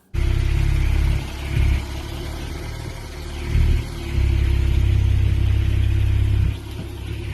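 2013 Porsche 911 Turbo S 997.2's twin-turbo flat-six running through its stock factory exhaust at low speed, a deep rumble that swells and eases several times with the throttle.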